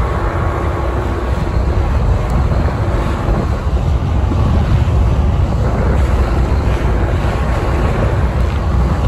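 Small outboard motor running at speed on an aluminium boat crossing choppy water. Heavy wind noise on the microphone and the rush of the wake and waves are mixed in. The sound is loud and steady throughout.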